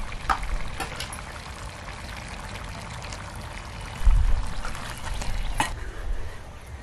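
Chicken sizzling and simmering in a pot over a wood fire as ground masala paste is stirred in with a spoon, a steady hiss with a few sharp clicks, and a dull thump about four seconds in.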